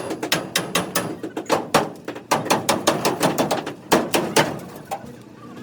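A rapid, irregular series of sharp knocks, about four or five a second, each ringing briefly, thinning out near the end.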